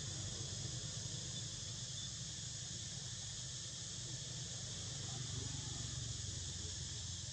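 Steady insect chorus: an even high-pitched buzzing that does not change, over a low steady hum.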